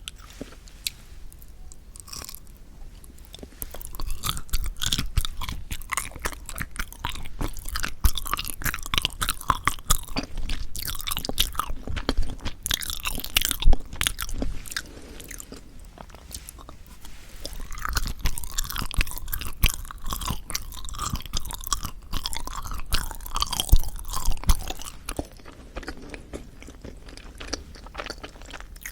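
A person chewing yanggaeng (Korean sweet bean jelly) right at the microphone: dense, clicking mouth sounds in two spells, a few seconds in and again just after the middle.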